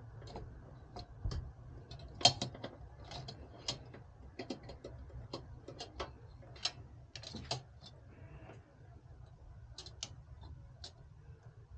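Irregular light clicks and taps of small hardware being handled while a CPU cooler is fitted, over a low steady hum. The clicks come unevenly, a few a second, and grow sparse in the last few seconds.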